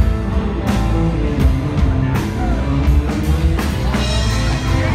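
Rock music with drums keeping a steady beat.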